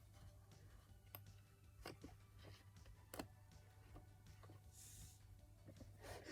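Near silence: a steady low hum with a few faint, scattered clicks and a brief soft hiss about five seconds in.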